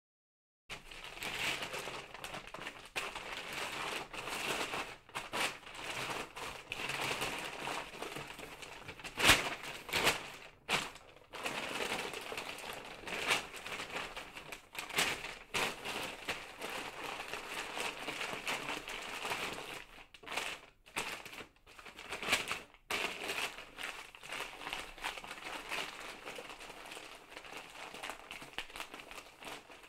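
A parcel being wrapped: the wrapping rustles and crinkles continuously as it is handled and folded, with many short sharp crackles. The loudest snap comes about nine seconds in.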